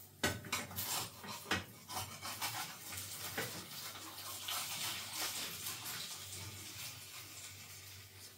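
A fish slice knocking and scraping against a frying pan several times as fried eggs are worked loose, then a steady sizzle of fat in the still-hot pan that swells and fades.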